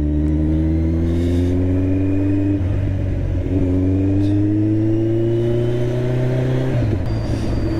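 Kawasaki Z1000's inline-four running through an SC Project exhaust under acceleration, its pitch climbing steadily. The note breaks twice, about a third of the way in and again near the end, as the rider shifts up. The exhaust is fitted without its connecting pipe, which the rider thinks leaves it less smooth than it will be.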